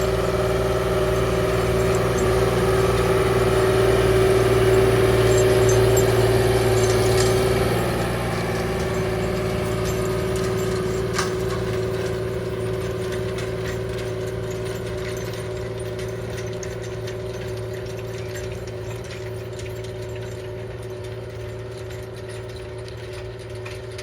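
John Deere 8420 tractor's diesel engine running steadily under load while it pulls a do-all through the field. It is loudest in the first several seconds, drops at about 8 s, then fades slowly as the tractor moves away.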